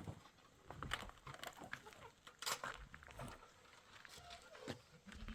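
Flock of goats and sheep close by: scattered faint clicks and knocks, with a few brief faint calls.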